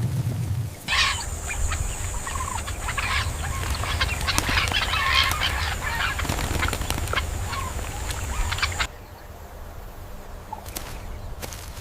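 Chickens clucking, a dense run of short calls over a steady high whine, which starts about a second in and cuts off abruptly about three-quarters of the way through, leaving only faint sound.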